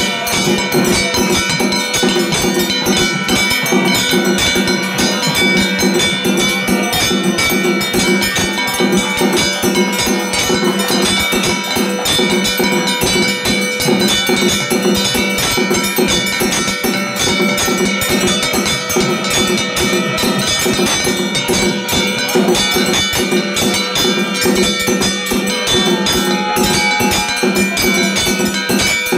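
Temple bells ringing continuously over rapid, steady percussion during a Hindu aarti (harathi) offering.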